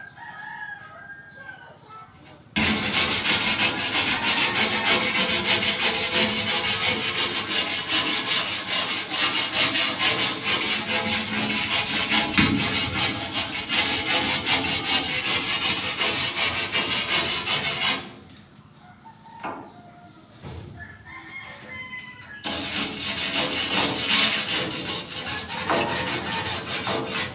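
Harsh, steady scraping of a rusty steel roof truss being cleaned. It starts abruptly a couple of seconds in, stops for about four seconds, then starts again.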